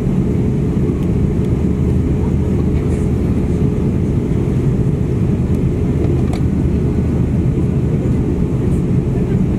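Cabin noise inside an Airbus A350-900 taxiing, its Rolls-Royce Trent XWB engines at low taxi thrust: a steady low rumble with a few faint clicks.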